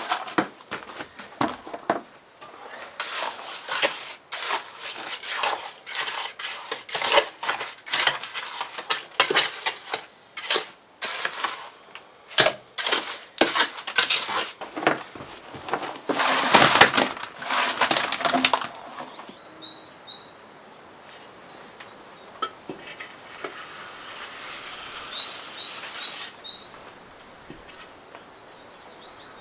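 Irregular clattering and scraping knocks, quick and uneven, for most of the first two-thirds, then a quieter stretch with a few short high chirps from a bird.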